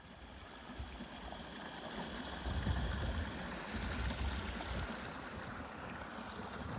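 Steady rushing outdoor noise, with low rumbling gusts of wind on the microphone that are heaviest in the middle.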